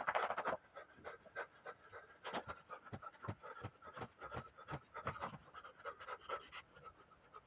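Heavy breathing from a man exercising, with scattered soft thuds and scuffs of sneakers and hands on the floor as he jumps, drops to the floor and does push-ups.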